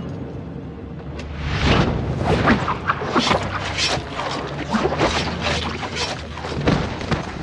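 Dubbed fight sound effects: a quick string of whooshes and hits starting about a second and a half in, over a low droning music bed.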